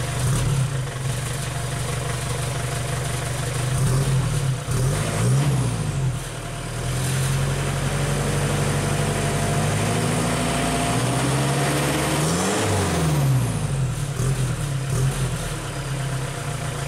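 Exhaust of a 2004 Mitsubishi Triton's 2.8-litre four-cylinder turbo-diesel, through a custom exhaust pipe, heard at the tailpipe. It idles steadily, is revved up and back down briefly about four seconds in, and again about twelve seconds in.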